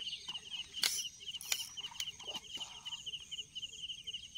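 An insect chirping in a high, rapid, even pulse, with a few faint taps.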